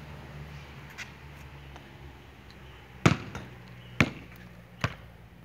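A basketball bouncing on a concrete court: a faint bounce about a second in, then three loud bounces roughly a second apart in the second half, over a faint steady low hum.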